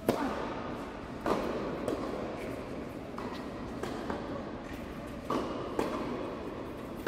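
Tennis ball struck by rackets and bouncing on an indoor hard court: a serve, then a rally of sharp pops spaced about a second apart, ringing in the large hall.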